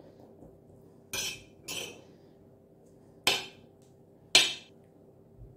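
A metal spoon scraping and clinking against a ceramic plate four times as it stirs butter through steamed couscous.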